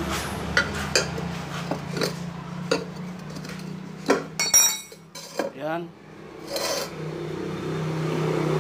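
Steel tyre spoon clinking and scraping against a cast-alloy motorcycle rim while a tubeless tyre bead is levered on, with sharp clicks every half second or so and a bright metallic ring about four and a half seconds in, followed by a short squeak. A steady low hum runs underneath.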